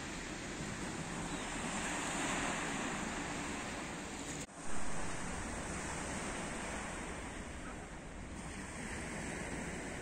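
Sea surf washing onto a stony shore, a steady hiss of water with wind on the microphone. The sound drops out briefly about halfway through, then the sea and wind noise carries on.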